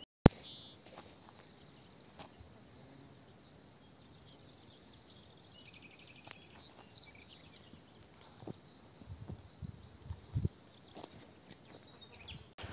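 Insects chirring in a steady, high-pitched drone. A sharp click right at the start, and a few soft knocks and thumps near the end.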